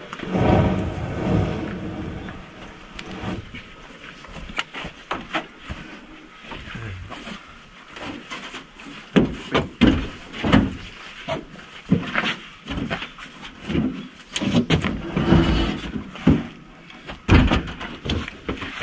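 Heavy sawn timber posts being handled and loaded into a small pickup truck's bed: first a scraping slide of wood on wood, then a run of irregular wooden knocks and thumps as the beams are set down against each other and the truck bed, the loudest in the second half.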